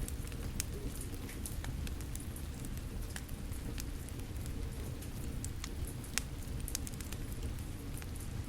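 Wood fire crackling with frequent sharp irregular pops over a steady low rumble of falling rain.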